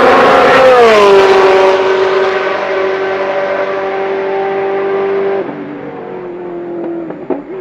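A Ferrari's engine running at high revs as the car goes by: the pitch sweeps down about a second in, then holds steady as it fades, and drops away sharply about five and a half seconds in.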